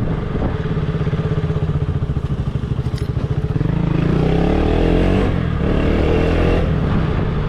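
KTM single-cylinder motorcycle engine heard from the rider's seat, running at low revs with a fast pulsing beat at slow road speed. About halfway through it picks up, the pitch rising as it accelerates, then it settles into a steady cruise.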